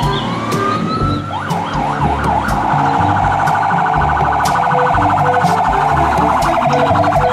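Fire truck siren: it rises in pitch over about a second, sweeps up and down a few times, then switches to a fast, even yelp warble from about two and a half seconds in.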